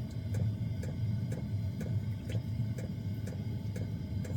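Small diesel air heater running: a steady low rumble from its burner and fan, with the fuel pump ticking evenly about three times a second.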